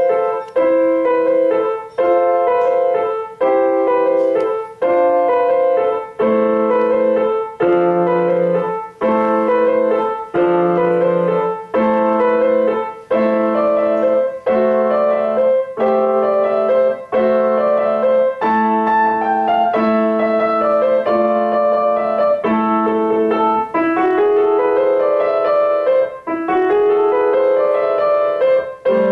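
Piano playing a Christmas tune: chords struck in a steady pulse, with rising runs near the end.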